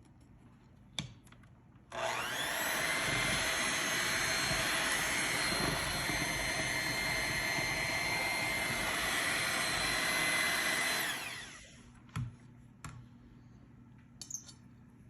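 Small electric kitchen-appliance motor switched on about two seconds in, running steadily with a whine for about nine seconds, then winding down. A few light knocks and clicks come before and after it.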